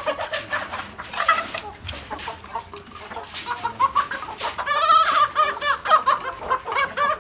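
A flock of young native chickens calling, many short overlapping calls, busiest about four to six seconds in.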